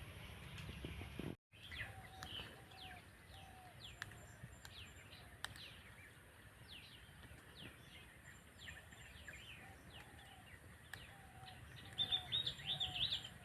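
Wild birds calling in forest: many short, quick downward-sweeping chirps, a lower note repeated every second or so, and a louder burst of chirping near the end. The sound cuts out completely for a moment about a second and a half in.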